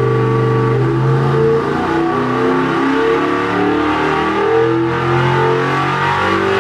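Engine running under load on a SuperFlow engine dynamometer during a test pull: a steady, loud engine note whose tones shift and waver as the run goes on.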